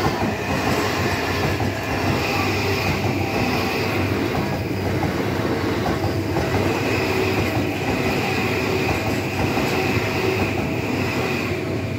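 Electric commuter train passing close by over a level crossing: a steady loud rumble with wheels clattering over the rails and a high steady wheel squeal, while the crossing's warning bell rings.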